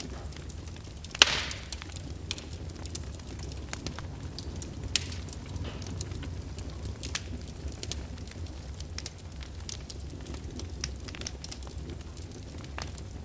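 Fire in a fireplace crackling, with many small scattered pops and one loud snap about a second in, over a steady low rumble.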